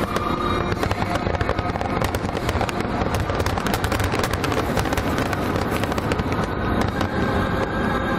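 Fireworks grand finale: a dense, continuous barrage of aerial shells bursting, many bangs and crackles overlapping with no gaps between them.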